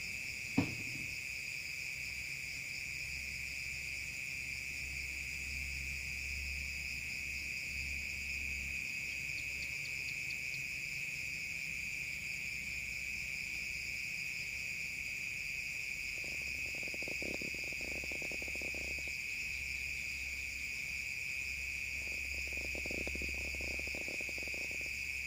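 Steady high-pitched drone of a night insect chorus, crickets, with a single sharp click about half a second in. Twice in the second half a lower pulsing sound joins in for a few seconds.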